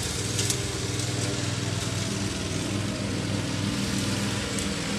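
Riding lawn mower's engine running steadily under load while cutting grass.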